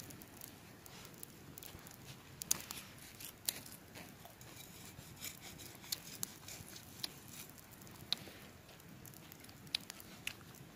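Wood campfire crackling, with irregular sharp pops, while a cleaver scrapes the charred crust off a roast wild boar leg on a wire grill.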